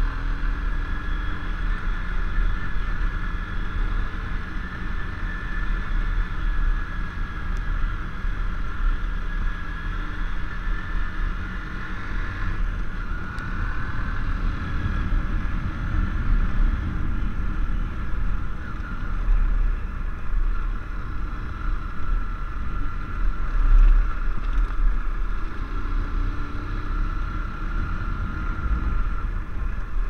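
Honda motorcycle's engine running at steady riding speed over a gravel track, its pitch rising and falling slightly, under a heavy low rumble of wind and road noise on the microphone.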